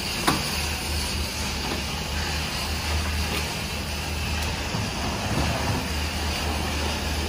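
Steady low hum of an idling engine, with one sharp knock near the start as a plastic crate is set down on the truck's metal bed.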